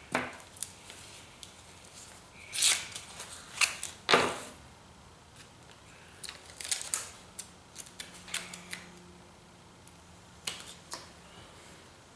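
Aluminium foil tape being handled and peeled from its backing: scattered short crinkles and clicks, with a sharper cluster about four seconds in.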